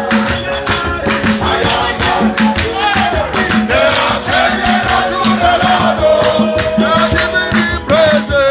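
Worship music: singing voices over fast rhythmic percussion with shakers.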